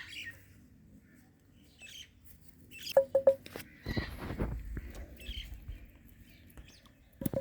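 Indian ringneck parrot pecking and gnawing at a guava, with sharp taps and a few short chirps, and a louder rustling scrape about four seconds in.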